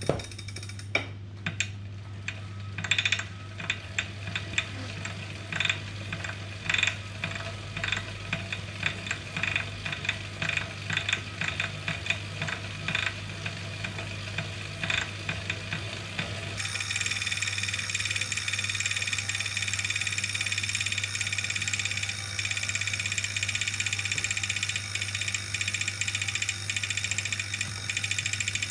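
Wahoo KICKR 2018 direct-drive smart trainer running while the bike on it is pedalled: a steady low hum under irregular clicking and ticking, which about halfway through gives way to a continuous, higher rattling buzz. It is the trainer noise its owner filmed to report to Wahoo support as a problem.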